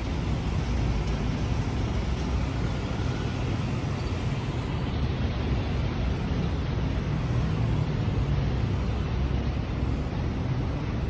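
Steady low rumbling background noise with an even hiss above it, no distinct events.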